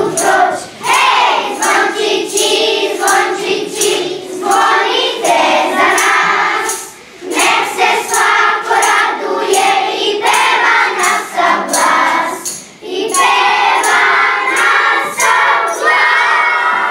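A choir singing, in phrases with brief breaks about seven and twelve and a half seconds in.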